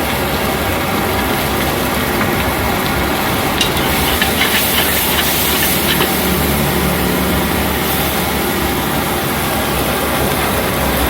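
Noodles frying in a wok at a roadside stall: a loud, steady hiss and rumble, with a run of sharp metallic clicks and scrapes from the spatula against the wok about four to six seconds in.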